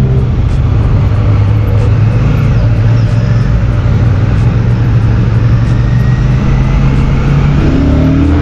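Royal Enfield Shotgun 650's parallel-twin engine running steadily with its stock silencers while the bike rolls in traffic, heard from the rider's seat; near the end its pitch starts to rise as it accelerates.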